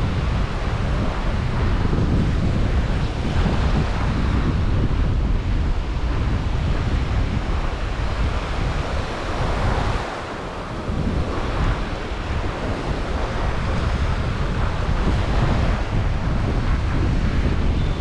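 Wind buffeting the microphone in a steady low rumble over small Gulf surf washing onto the beach, easing briefly about ten seconds in.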